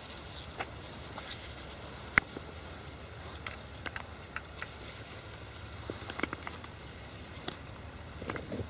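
Faint handling noise from fingers baiting a small fishing hook: scattered soft clicks and rustles, a few in quick succession about six seconds in and again near the end, over a steady low rumble.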